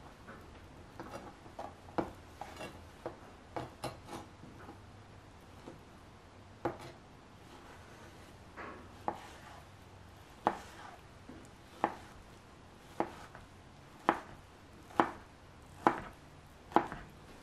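Chef's knife dicing ripe mango into small cubes, the blade knocking on a plastic cutting board with each cut. Scattered light taps at first, then louder, steadier strokes about once a second in the second half.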